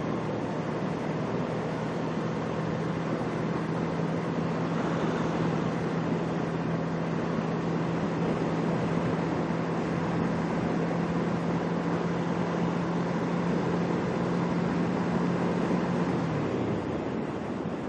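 Kawasaki Ninja 650R's parallel-twin engine running at a steady speed under heavy wind rush on the microphone while riding. The engine note drops away near the end as the throttle is rolled off.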